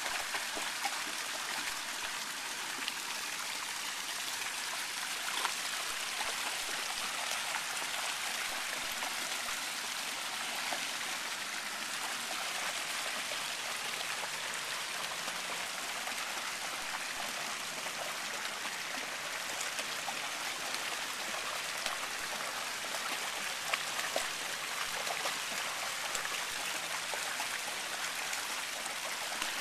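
Fountain jets pouring steadily into a shallow pool, a continuous splashing rush, with light splashes from a Samoyed wading through the water.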